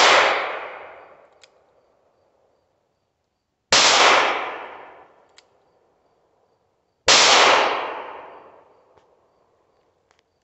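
Three shots from a Taurus 605 snub-nose revolver firing .38 Special rounds, about three and a half seconds apart, the first right at the start. Each shot is followed by an echo that fades over about a second and a half.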